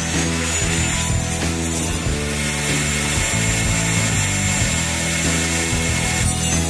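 Table saw ripping a length of wood, then its blade spinning on without a workpiece, over background music.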